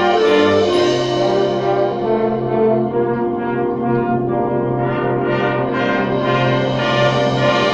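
Wind band playing sustained chords led by the brass, with trombones and horns to the fore over a held low bass note.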